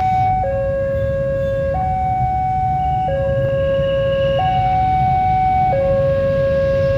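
Railway level crossing warning alarm sounding a steady two-tone hi-lo signal, a lower and a higher tone swapping about every second and a half, warning of an approaching train. A low steady rumble of idling traffic runs beneath it.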